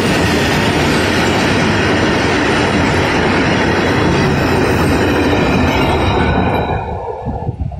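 Loaded freight wagons of an Indian Railways goods train rolling past close by, their wheels running loud and steady on the track. The noise falls away about seven seconds in as the last vehicle goes by, with a few final knocks.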